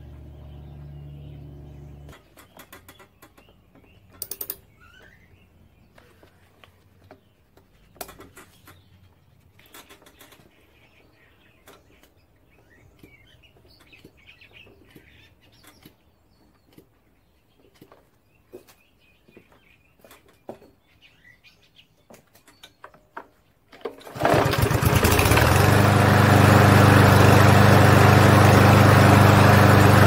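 Scattered handling clicks with faint birdsong, then about 24 seconds in a Briggs & Stratton lawn mower engine starts up suddenly and runs loud and steady.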